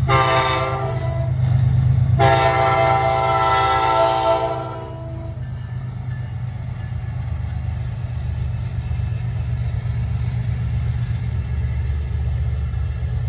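Air horn of a Wabtec ES30ACi diesel-electric locomotive sounding a short blast, then a longer blast of about three seconds, over the steady low rumble of the four locomotives running past.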